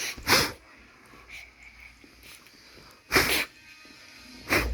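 Short, sharp puffs of breath: air blown at a shih tzu and the small dog's sneeze-like snorts. There are two at the start, another about three seconds in, and one near the end.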